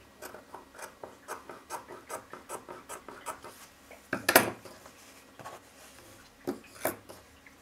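Scissors snipping through cotton fabric, a quick run of about five cuts a second, then a loud knock as the scissors are put down on the table, and two lighter knocks near the end.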